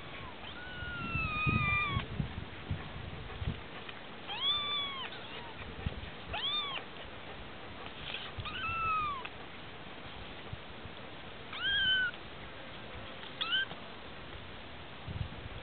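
Kittens mewing: about six thin, high-pitched meows, each bending up and down in pitch, the first a longer falling one. Low rustling and bumping in the first few seconds.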